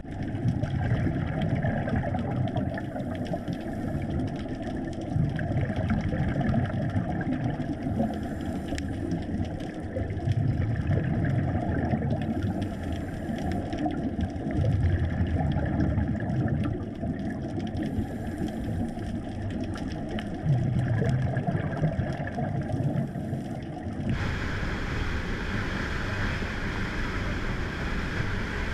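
Underwater sound of scuba diving: a diver's regulator breathing with exhaled bubbles gurgling in surges every few seconds. Near the end it cuts to a dive boat running at speed, its motor and the rushing spray and wind.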